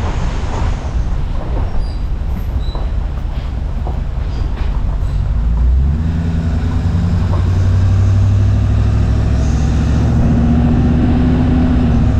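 Ford F250 pickup towing a loaded equipment trailer along a gravel road: a low engine drone with tyre and gravel noise and scattered clicks and rattles. About halfway through, the engine note grows louder and steadier.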